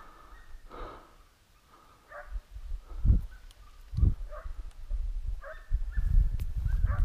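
Hunting dogs barking in the distance while on the trail of wild boar, short barks at irregular intervals of a second or so. Low thuds and rumble from the camera being moved come in the middle and near the end.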